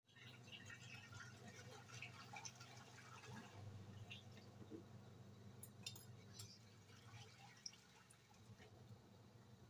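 Faint bubbling and popping of lamb broth simmering in a pot on a gas stove, over a low steady hum.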